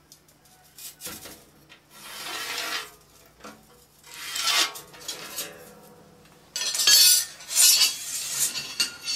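Metal scraping on rusty tin plate as a line is scribed along a steel rule held to a square: several scratchy strokes, loudest in the last few seconds, with the rule and square scraping and clinking on the plate.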